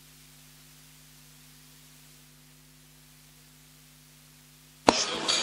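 Faint steady electrical hum and hiss. About five seconds in, it cuts suddenly to the loud chatter of a hall full of people.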